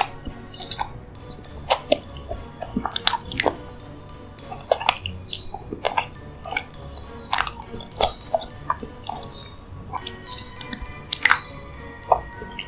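Close-miked chewing of a soft dessert: irregular sharp mouth clicks, a few of them much louder, over soft background music.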